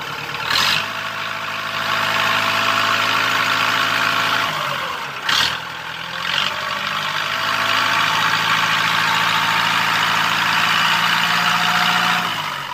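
Iseki 6500 tractor's diesel engine running steadily while its hydraulic front loader lifts. The engine note dips and recovers about five seconds in, with a few short clunks near the start and mid-way.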